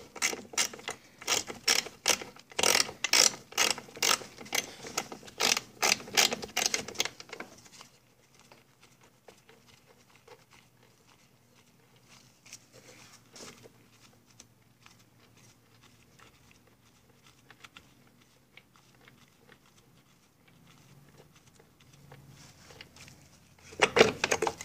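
Socket ratchet wrench clicking in quick runs as a bolt is turned out, about four clicks a second for the first seven seconds or so. After that come a long lull with only faint small ticks and another short burst of ratcheting near the end.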